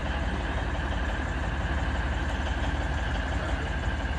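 Steady low rumble of a narrow-gauge diesel locomotive running, heard from inside its cab.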